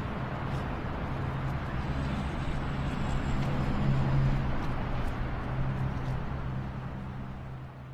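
Waterfall sound effect: steady rushing water with a low rumble, swelling slightly in the middle and fading out near the end.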